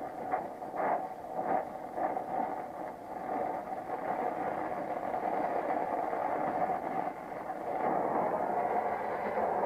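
Brazing torch flame hissing steadily on a copper refrigerant joint while a brazing rod is fed in, with a few short crackles near the start and a louder stretch from about eight seconds in.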